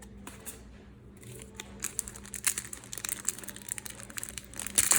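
Foil trading-card packet crinkling as it is handled and torn open. The crackling starts about a second and a half in and gets louder toward the end.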